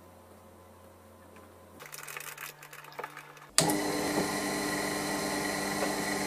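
Light clicking and tapping, then a small benchtop milling machine's motor running steadily with a fixed whine. The motor sound comes in abruptly a little past halfway and is the loudest thing here.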